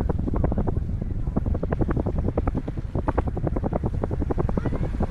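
Wind rumbling on the microphone of a camera riding on a moving bicycle, with a fast, uneven rattle of about eight to ten knocks a second.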